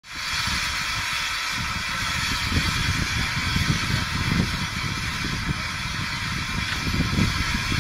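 Steady hiss of steam from the standing steam tank locomotive Rosyth No 1, with wind rumbling on the microphone.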